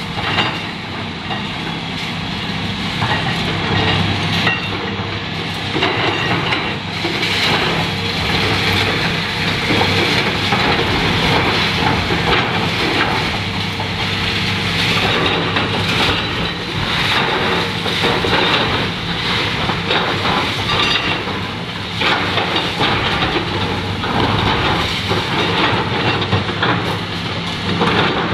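Caterpillar 320B hydraulic excavator demolishing a concrete building. Its diesel engine runs steadily under load while broken concrete and steel debris clatter, scrape and crash continuously.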